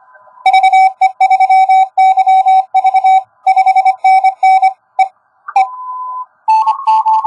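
Morse code (CW) tones from an Index Labs QRP+ ham radio transceiver on 10 metres: a loud run of dots and dashes at one steady pitch, then a brief held tone a little higher after about five seconds, and more dots and dashes starting near the end.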